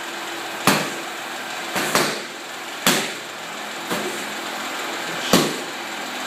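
Muay Thai pad work: gloved punches and a kick smacking focus mitts and a belly pad. There are about six sharp smacks roughly a second apart, two of them in quick succession about two seconds in.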